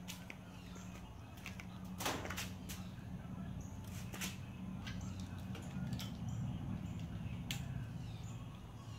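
Hands working a truck's tail-light wiring harness and plastic trailer plug: scattered clicks and rustles of wires and plastic, the loudest click about two seconds in, over a steady low hum.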